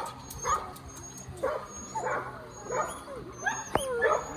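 Dogs barking and yipping in a string of short barks, about seven in a few seconds.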